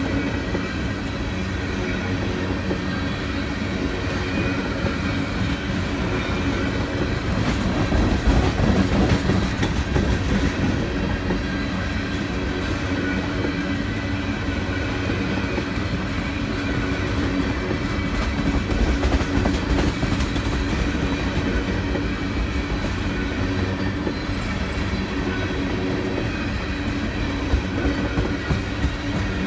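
Tank cars of a CSX freight train rolling past close by: a steady rumble of steel wheels on the rails, swelling louder twice, about a third of the way in and again past the middle.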